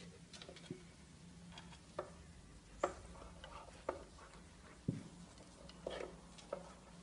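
Faint, scattered taps and scrapes from a cat moving about behind a cabinet, roughly one a second, over a low steady hum.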